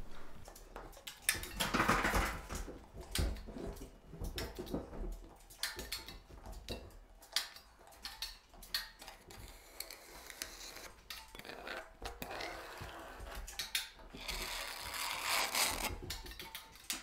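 Steel putty knife scraping and spreading gypsum joint compound into a ceiling joint, with irregular scrapes and clicks as the knife is loaded and wiped against a second, wider steel spatula.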